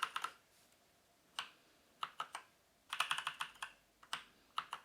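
Keys on a Havit HV-KB389L mechanical keyboard with Kailh brown switches being pressed, sharp clacks coming in short clusters of several strokes with brief gaps between.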